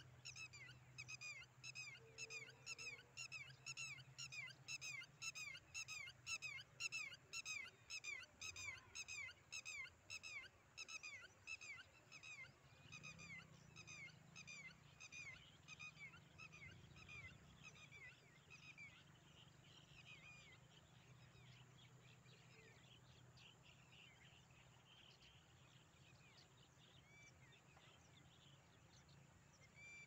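A flock of birds calling as they fly over: short, high, repeated calls about two a second, which thin out and fade away after about twenty seconds, leaving a faint steady low hum.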